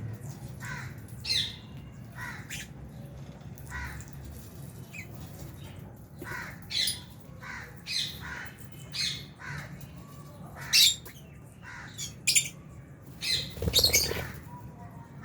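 Lovebirds giving short, shrill chirps and squawks at irregular intervals, with a few louder calls in the second half, over a low steady hum.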